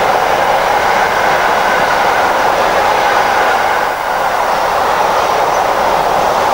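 Empty enclosed car-carrier wagons of a freight train rolling steadily past close by: an even, continuous noise of wheels running on the rails, dipping slightly about four seconds in.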